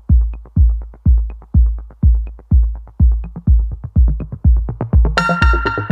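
Electronic background music with a steady kick-drum beat about twice a second. A bright synth chord layer comes in near the end.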